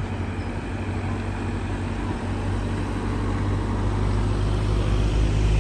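A motor vehicle's engine running close by: a steady low hum that grows slowly louder.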